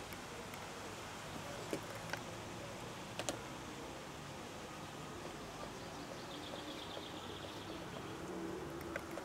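Faint outdoor ambience: a steady hiss with a few sharp clicks scattered through it, and a brief, rapid high-pitched ticking trill about six seconds in.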